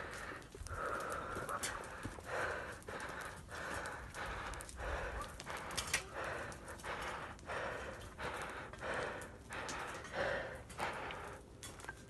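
A person panting heavily while exerting themselves on foot, in rhythmic breaths about two a second.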